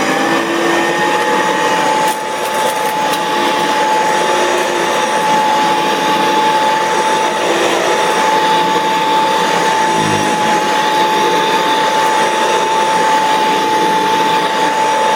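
Hoover U4122 Convertible upright vacuum cleaner running steadily while vacuuming, with a steady high whine from the motor, which has a new belt and new bearings. There is a brief low thud about ten seconds in.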